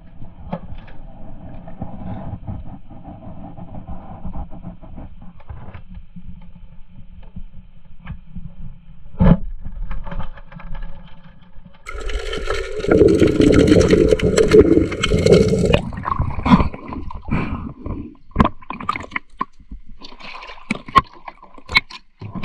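Water gurgling and sloshing, heard through an underwater camera, with one sharp knock about nine seconds in and a louder, busier rush of water from about twelve to sixteen seconds, followed by scattered knocks and splashes.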